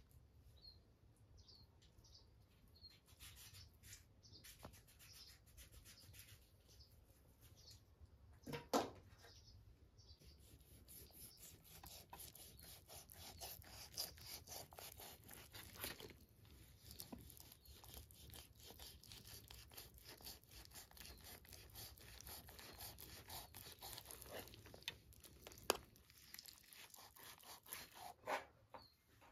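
Faint knife work on raw lamb ribs: a blade slicing and scraping through the meat, with small clicks and rubs against a metal tray. A few faint high chirps come in the first seconds, a short rising squeak about nine seconds in, and a sharp click near the end.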